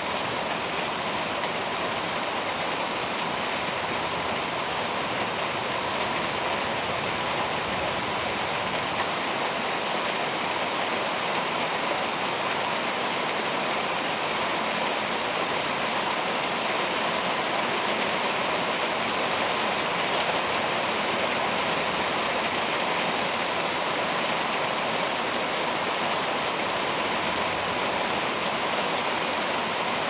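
Heavy rain pouring steadily onto broad leaves and undergrowth, an even, unbroken hiss.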